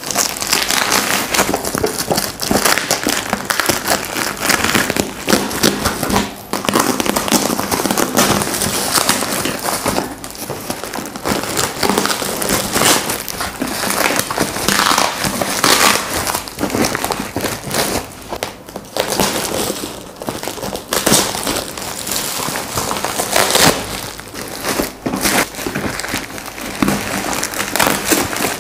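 White packaging wrap around a large parcel being cut and torn open by hand: a continuous crinkling, crackling rustle with many short crackles.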